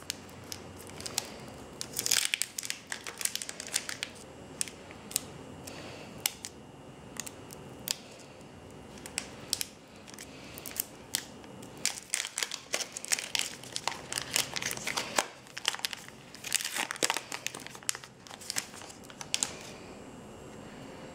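Foil wrapper of a Pokémon booster pack crinkling and tearing as it is opened by hand, in repeated spells of sharp crackling.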